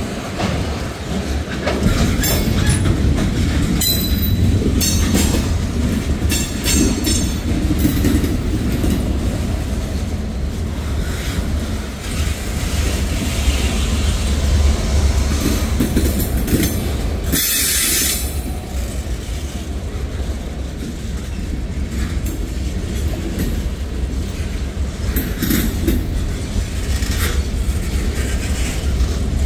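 Loaded freight train boxcars rolling past close by: a steady low rumble with wheels clacking over the rail joints and sharp clanks now and then.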